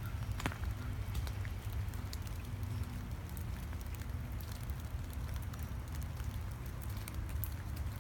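Footsteps crunching on a wet gravel trail, a scatter of small crackles, over a steady low rumble.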